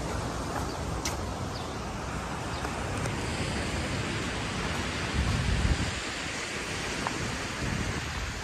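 Steady outdoor wind noise buffeting the microphone over a distant wash of sea surf, with a stronger gust rumbling about five seconds in.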